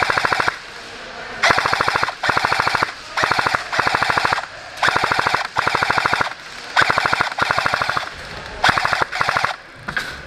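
A&K M249 Mk46 airsoft electric gun firing full-auto in about ten short bursts, its gearbox cycling a fast, even stream of shots in each burst. This is suppressing fire.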